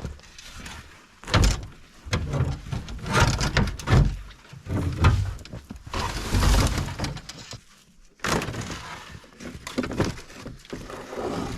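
Irregular clunks, knocks and scrapes of snowmobile parts being handled and pulled apart, with plastic covers and the air filter box being lifted off.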